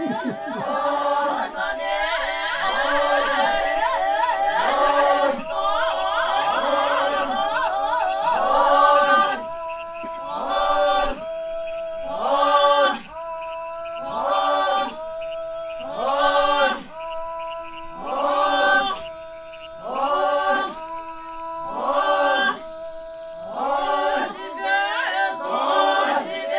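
A group of Naga villagers singing a polyphonic song a cappella, several voices interlocking. Dense and overlapping at first, then settling after about nine seconds into short phrases repeating about every two seconds over a held low note.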